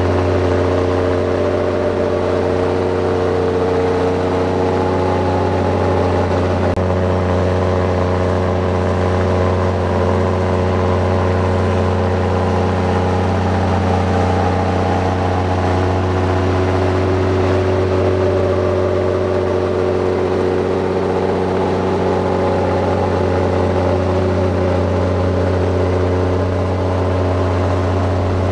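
Heavy diesel engine of earthmoving machinery running steadily, a deep low drone whose pitch drifts slightly up and down.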